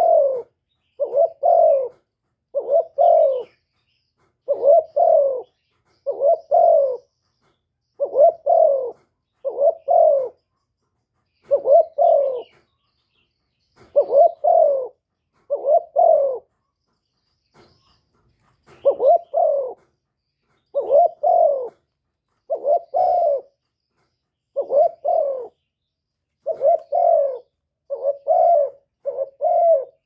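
Spotted dove cooing: short, low coos in quick pairs, repeated every second or two, with a brief pause a little past the middle. The call is given as a female spotted dove calling to a male.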